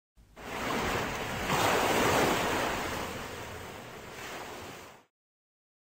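Sea surf: a rush of breaking waves that swells in, then slowly dies away and stops about five seconds in.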